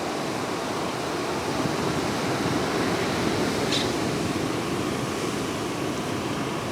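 Steady rush of moving water, an even noise without a break. A brief high chirp about four seconds in.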